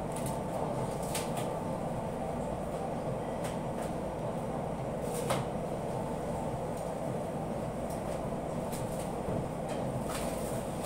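Steady droning hum of commercial kitchen equipment, with a few light clicks and taps as beef cubes are threaded onto bamboo skewers over a metal tray, the sharpest about halfway through.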